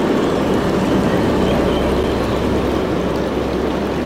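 Tram passing close by on street rails: a steady rumble of wheels on track with a low hum underneath.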